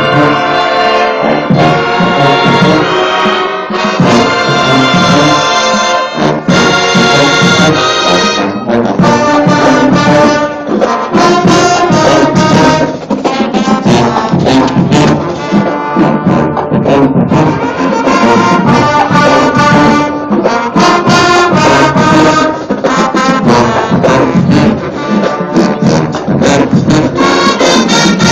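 Marching band playing loudly, led by trombones and trumpets, with sharp percussion hits punctuating the tune.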